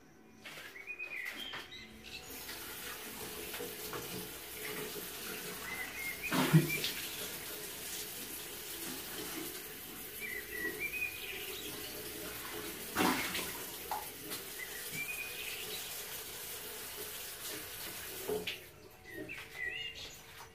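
Bathroom sink tap running while someone splashes water onto his face, with a couple of louder knocks; the water starts about two seconds in and stops shortly before the end. A bird chirps several times in the background.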